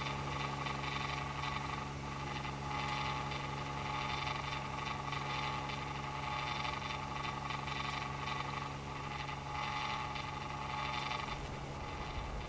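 Pitching machine's motor running with a steady low hum and a fainter, higher whine.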